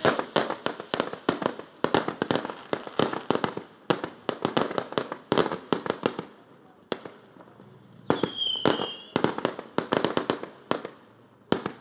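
Aerial fireworks going off in rapid series: dense clusters of sharp cracks and bangs, thinning out briefly around four and seven seconds in, with a short high whistle about eight seconds in.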